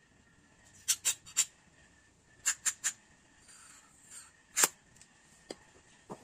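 Short puffs of carburetor cleaner shot from an aerosol can through its thin red extension straw into the passages of a Honda Vario 110 carburetor: three quick puffs about a second in, three more about a second and a half later, then one louder puff and two fainter ones near the end.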